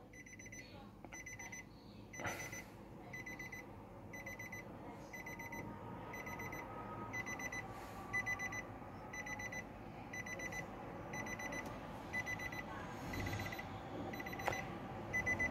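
Car's interior warning chime beeping steadily, a high electronic beep repeating about twice a second, with a few faint knocks from hands working at the steering wheel.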